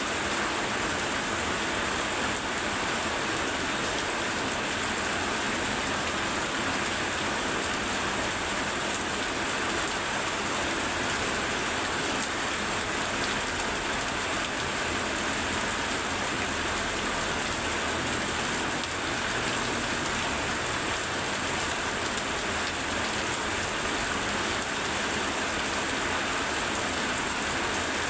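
Very heavy rain falling steadily, an even unbroken hiss of rain.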